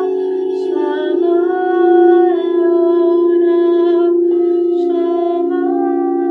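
Steady, ringing drone of singing bowls, with a woman's voice singing long held notes over it and moving to a new pitch every second or two.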